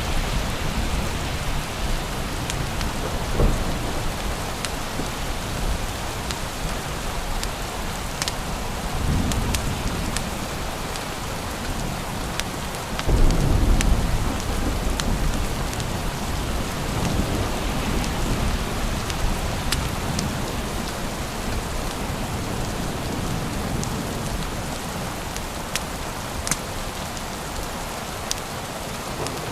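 Steady heavy rain falling, with low rolls of thunder, the loudest about thirteen seconds in. Scattered sharp ticks sound over the rain.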